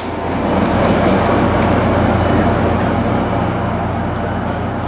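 EMD F40PH-3C diesel locomotive going by and moving away, its engine a steady low drone over the rumble of wheels on rail, easing off slightly toward the end.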